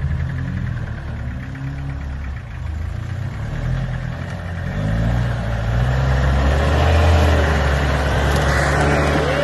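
A four-wheel-drive ute's engine labouring up a steep rutted dirt climb, its revs rising and falling several times. It grows louder as the vehicle nears, loudest around seven seconds in.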